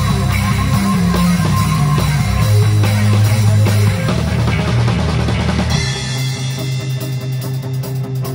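Instrumental post-rock/stoner rock trio playing live: electric guitar, bass guitar and drum kit together in a loud, heavy passage. About six seconds in, the deep low end drops away and the playing thins out to a lighter section over a held bass note.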